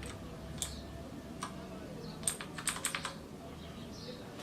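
Keys pressed on a mechanical keyboard with clicky Cherry MX Blue switches. A few separate clicks are followed by a quick run of four or five keystrokes.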